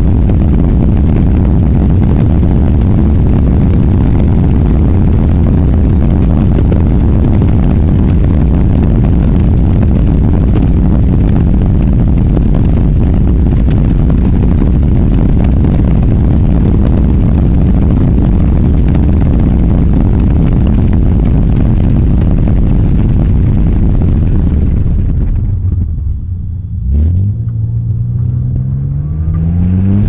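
Heavy wind buffeting on a microphone mounted outside a moving Nissan Skyline R33 GT-R, a steady low rush. Near the end the wind drops away, a click sounds, and the car's straight-six engine comes through, rising in pitch as it accelerates.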